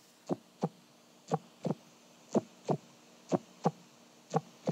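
Heartbeat sound effect: pairs of short low thumps, lub-dub, about once a second, five beats in all.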